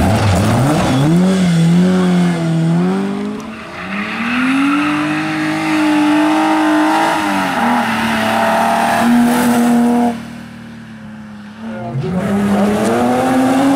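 Rally car engines at full throttle, first a Ford Escort Mk2 and then a BMW E30, each note climbing and dropping sharply with gear changes. About ten seconds in the sound dips quieter for a moment, then another engine climbs in again.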